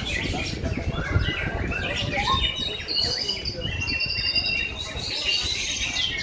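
Several white-rumped shamas (murai batu) singing at once, their loud whistled phrases, rapid trills and held notes overlapping without a break.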